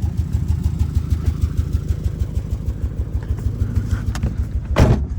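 2002 Subaru Legacy's flat-four engine idling with a steady low pulsing rumble; the owner doubts that the sound he is hearing is a misfire. A short loud noise cuts in near the end.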